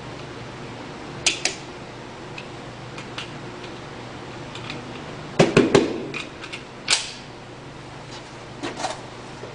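Scattered sharp metallic clicks and knocks, with a quick cluster of three or four louder ones about five and a half seconds in, another just before seven seconds, and a pair near nine seconds.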